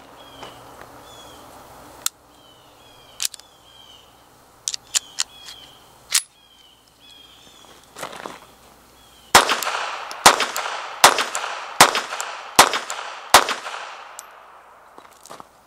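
Mauser Model 1914 .32 ACP pistol firing six shots in steady succession, a little under a second apart, each with a short echoing tail. Several lighter clicks come before the shots.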